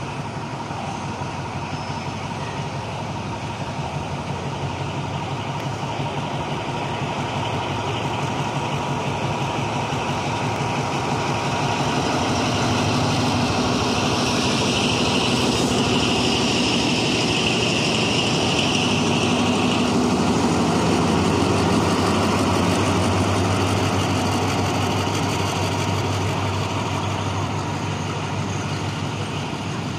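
Alsthom diesel-electric locomotive 4303 running as it hauls a passenger train past. Its engine and the rolling train grow louder as it comes close, are loudest midway, then fade as it moves away.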